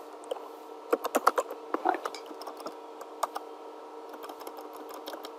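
Computer keyboard typing: quick runs of keystrokes in the first two seconds, a lone keystroke a little after three seconds, then a pause. A steady hum runs underneath.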